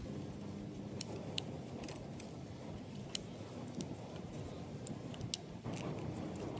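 A handful of sharp, separate clicks and taps of small metal and plastic parts as a Ford Falcon door latch mechanism is worked into place by hand.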